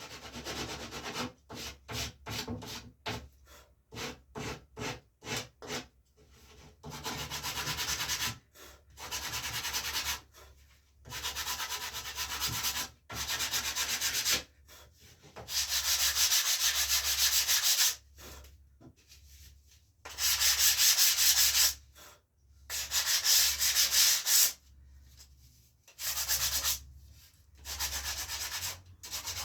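Hand sanding: sandpaper on a wooden sanding block scraping over the rawhide backing near the tip of a wooden paddle bow. It starts with quick short strokes, about two a second, then goes on in longer, louder strokes of a second or two each with short pauses between.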